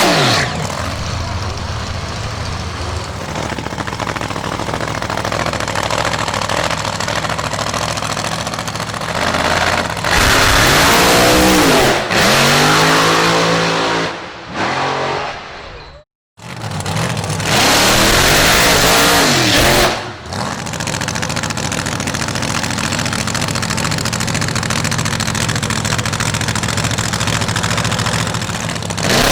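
Drag racing cars' engines running hard at full throttle, in a string of short clips that cut from one car to the next. In the middle the engine pitch swings up and down, and the sound cuts out for a moment about sixteen seconds in.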